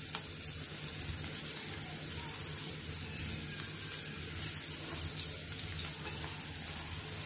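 Coated modka (whitebait) fish sizzling steadily as they shallow-fry in oil in a pan.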